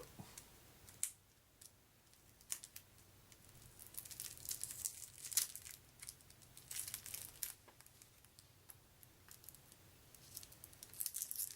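Plastic seal being torn and peeled off a pack of game cards, crinkling in irregular spurts that come thickest about four to seven seconds in and again near the end.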